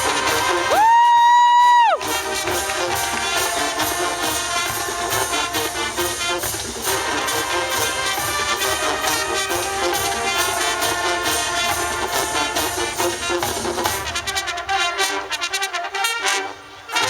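High school marching band playing, brass section over a driving drum beat. About a second in, a loud held high note swoops up and sustains for about a second before the full band carries on.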